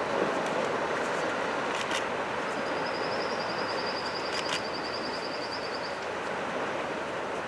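Steady rushing wash of surf on the beach. A high, rapid trill sounds for about three seconds in the middle, with a couple of faint clicks.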